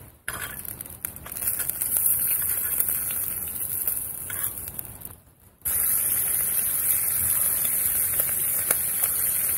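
Slices of smoked tongue sizzling on a small grill plate over a camp stove: a steady high hiss, cutting out briefly about five seconds in.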